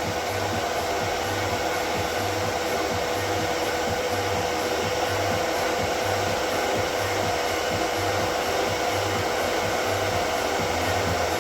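Inline duct fan and two small exhaust fans running together: a steady whoosh of moving air with a constant hum tone.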